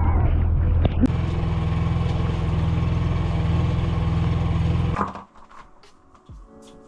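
Boat engine running at a steady pitch, cutting off suddenly about five seconds in; quiet music follows.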